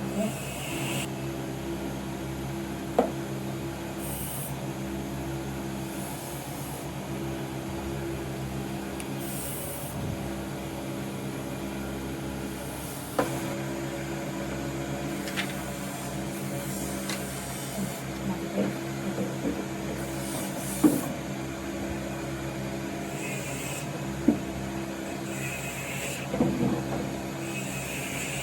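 Woodworking: a steady machine hum with several sharp wooden knocks and some rubbing.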